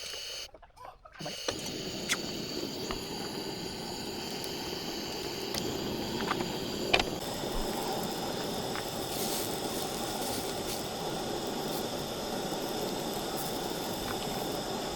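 Gas camp stove burner running with a steady hiss and rush, with a few light knocks of cookware, one sharper about seven seconds in.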